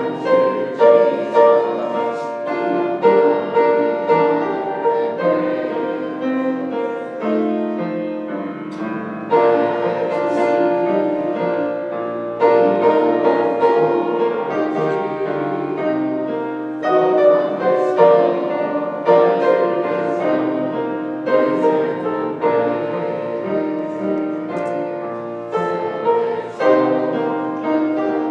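Piano playing a slow hymn, held chords changing every second or two.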